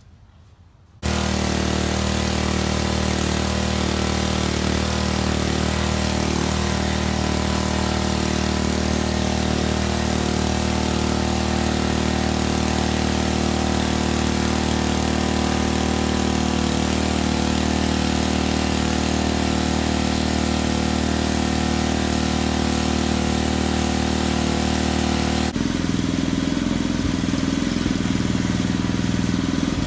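Gas-engine pressure washer running steadily under a continuous hiss. It starts abruptly about a second in and shifts suddenly to a different mix about 25 seconds in.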